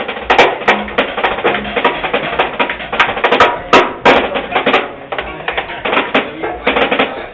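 A live backing band playing at a sound check, with sharp, unevenly spaced drum kit hits standing out over the music.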